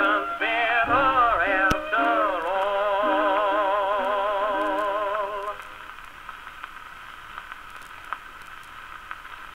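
Closing bars of a 1925 acoustic-era 78 rpm shellac record played on a Victor Victrola VV-XI phonograph: violin with a wide vibrato over guitar, ending on a long held note. The music stops about five and a half seconds in, leaving the record's surface hiss and scattered crackles.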